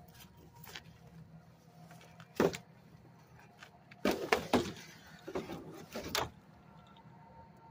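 Several knocks and clatters from a discarded, mostly plastic item being handled at a trash can. The loudest comes about two and a half seconds in, and a quick cluster follows around four seconds in, over a low steady hum.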